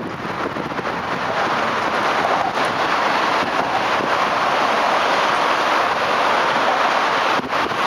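German ICE high-speed train passing close at speed: a steady, loud rush of wheels on rails and air along the carriages.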